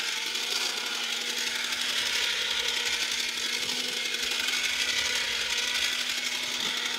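Dapol reproduction of the Louis Marx Dalek toy driving along under its own power: the steady whirring rattle of its battery-driven motor and gears.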